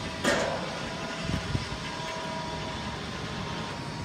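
Truck-mounted hydraulic loader crane running as it lifts a load off the flatbed: a steady mechanical hum with a faint steady whine. A short sharp burst of noise comes about a quarter of a second in.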